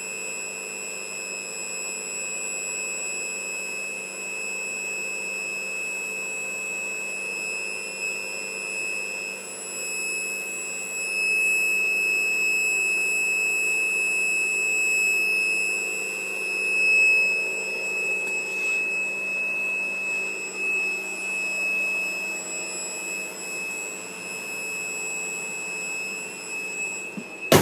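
A steady, high-pitched whistle holding one unchanging tone, coming from the engine bay of a 2002 Volvo S80 that is switched off. A short knock comes at the very end.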